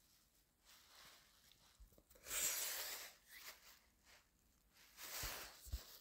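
Handling noise from a phone held close to the body: two spells of rustling and rubbing against fabric, the louder one about two seconds in, then a few soft thumps near the end.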